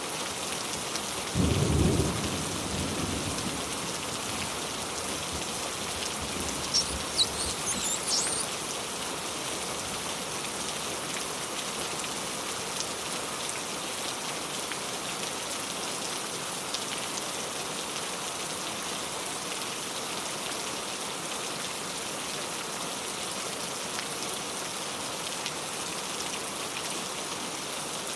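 Steady rain falling, with a short low rumble of thunder about a second and a half in. A few sharp high ticks stand out around seven seconds in.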